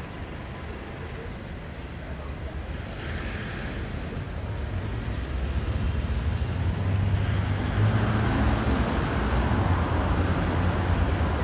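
Street traffic: a vehicle's low engine rumble grows steadily louder over several seconds as it draws near, over general road noise.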